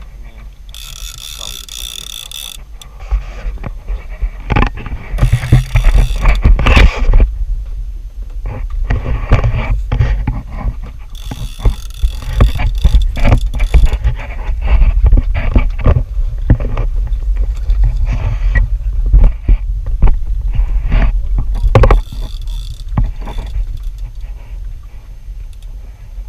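Wind buffeting the microphone on a small fishing boat at sea, a heavy gusting rumble, with many sharp knocks and clatter from handling on deck. Several brief bursts of high hiss cut in about a second in, around five to seven seconds, twelve to fourteen seconds and near twenty-two seconds.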